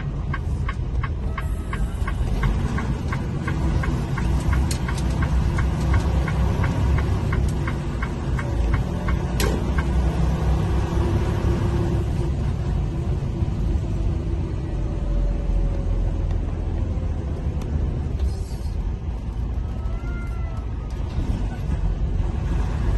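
Semi truck's diesel engine rumbling low inside the cab as the tractor-trailer rolls slowly, with a turn signal ticking about three times a second for the first few seconds. One sharp click sounds about nine seconds in.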